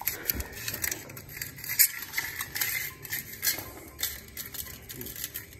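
A cow eating from a steel plate on a tiled floor: the plate clinks and scrapes on the tiles as its muzzle pushes at the food, in irregular clicks and knocks.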